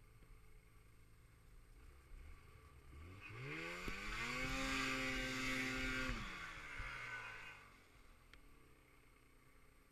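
Snowmobile engine revving: the pitch climbs about three seconds in, holds high for a second or two, then drops away as the throttle eases off.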